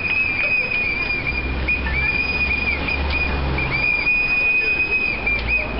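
A whistle blown in long, steady high blasts, broken by short gaps and restarts, over street noise and a low rumble.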